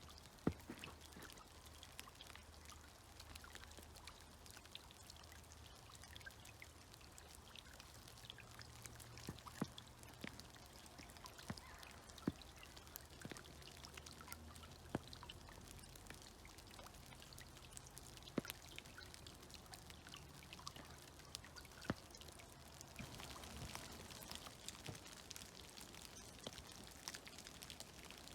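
Meltwater dripping and plopping from snow-laden trees at irregular intervals, over the faint trickle of a creek.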